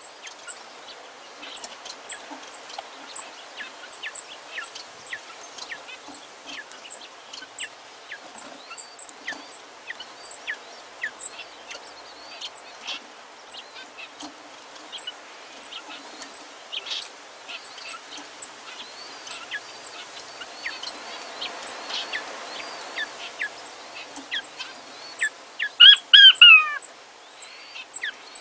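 Cinnamon king quail chicks peeping: a steady stream of short, high, falling peeps. A louder, sharper run of calls comes near the end.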